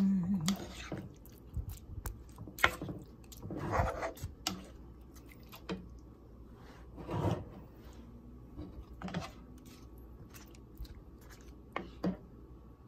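Plastic spoon stirring a thick tomato-sauce pork stew in a metal pan: scattered scrapes and clicks on the pan, with a few longer wet, squelching stirs.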